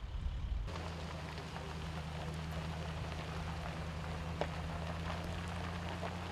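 Wildfire crackling and popping in burning brush and trees, many small sharp pops in a dense crackle, over the steady low hum of an idling vehicle engine that sets in about a second in.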